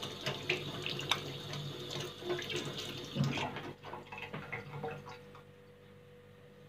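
Kitchen sink tap running while hands are washed under it, with irregular splashing; the water stops near the end.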